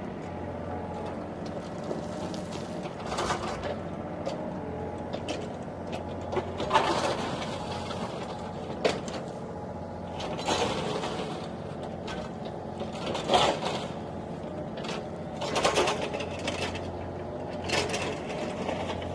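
Small electric motors and plastic gearboxes of a remote-control toy excavator whirring in about six short bursts as the boom, arm and tracks move, over a steady low hum.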